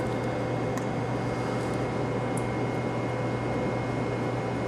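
Steady low hum with an even hiss over it and a faint high whine, with a few faint ticks.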